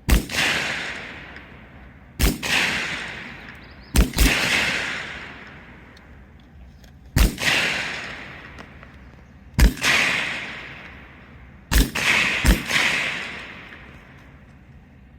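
Single aimed shots from C7A2 5.56 mm service rifles, seven in all at uneven intervals, each followed by a long rolling echo that dies away over a second or two; two shots come close together near the end.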